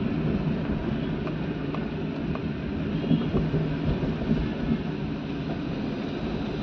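Steady low rumble of a vehicle driving along a city street: engine and road noise, with a few faint ticks.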